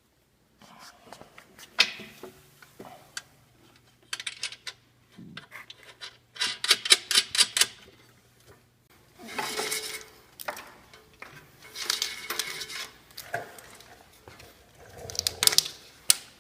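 Metal hardware and tools being handled while unbolting a steel fender: scattered clinks and knocks, a quick run of clicks about six seconds in, and two longer rasping bursts near the middle, over a faint low steady hum.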